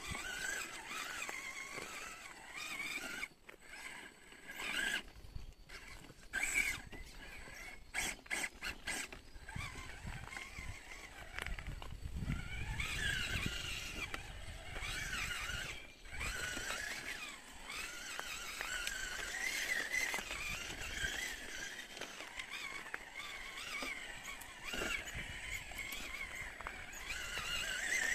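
RGT 136100 V3 RC crawler's electric motor and gear drivetrain whining, the pitch rising and falling as the throttle is worked over the rocks. Scattered sharp clicks from the tyres and chassis on stone, a cluster of them about eight seconds in.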